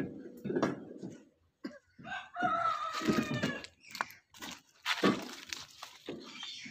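A rooster crowing once, about two seconds in, among scattered knocks and clatter of old CRT television sets being shifted in a pickup's cargo bed.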